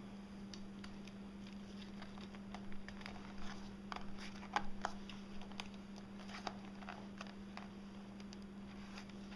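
Faint, scattered clicks and taps of a netbook's plastic case being handled as it is turned over and its battery latches are worked to free the battery, over a steady low hum.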